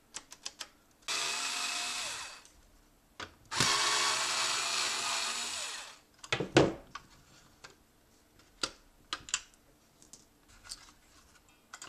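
A small electric screwdriver running in two bursts, about a second and then about two and a half seconds long, the second winding down as it stops. Sharp clicks and knocks of parts being handled in between, the loudest just after the second burst.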